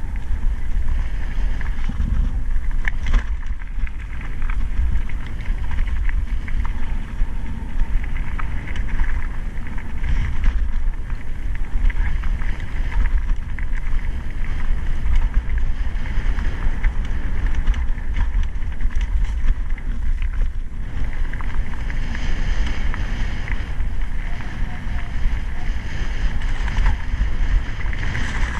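Mountain bike ridden over a dirt and gravel track: steady wind buffeting on the microphone, with the tyres rolling over the rough ground and the bike rattling.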